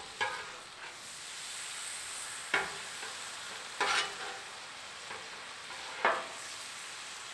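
Steak sizzling on a Blackstone flat-top steel griddle in teriyaki sauce, with a metal spatula scraping and clanking on the griddle about four times as the meat is turned.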